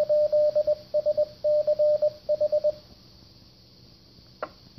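Amateur radio 2-meter repeater sending its Morse code identification through a transceiver's speaker: a string of short and long beeps at one mid pitch that stops about three seconds in. Faint hiss follows, with a short click near the end.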